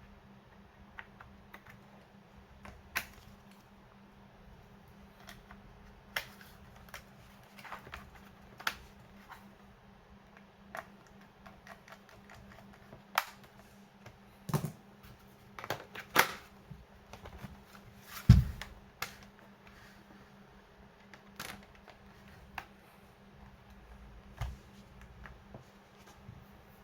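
Irregular clicks, taps and knocks from hands working on the plastic case and parts of an HP 8440p laptop, with one heavier thump about 18 seconds in.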